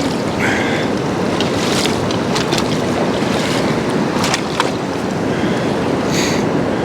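Steady rush of river rapids, with a few brief clicks and scrapes over it.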